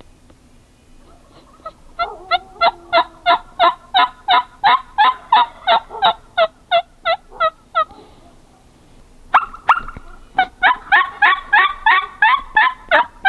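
Turkey yelping: a long even run of about eighteen hen yelps at about three a second, a pause, two sharp clucks, then another fast run of yelps near the end.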